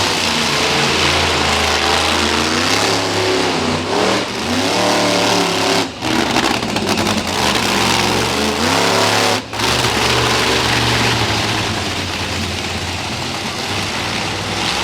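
Monster truck engine revving hard, its pitch surging up and falling back several times, with two brief sudden cut-outs about six and nine and a half seconds in.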